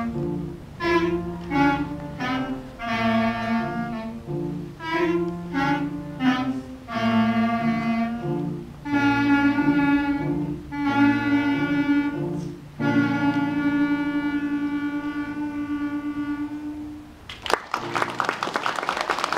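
A beginner clarinet ensemble of children playing a simple melody together, ending on a long held note that fades. Audience applause breaks out near the end.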